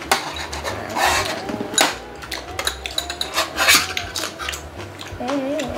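Table utensils clinking against a shallow pan and serving bowls during a meal: metal chopsticks and a spoon picking up food, a string of separate sharp clicks and taps.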